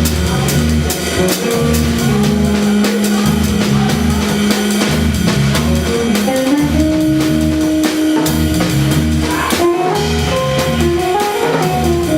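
Jazz trio playing, with a drum kit keeping a steady beat under guitar.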